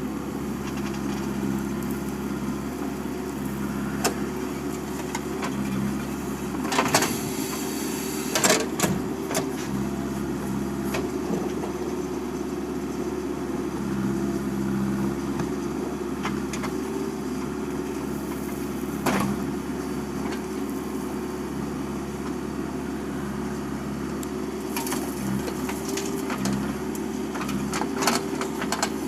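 JCB 3DX backhoe loader's diesel engine running steadily while it works, with occasional sharp knocks and clanks; the loudest come about seven and eight and a half seconds in.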